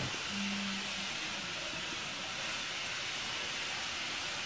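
Steady background hiss of room noise, with a brief low hum about half a second in; the quiet crafting with the glue stick and glitter makes no clear sound.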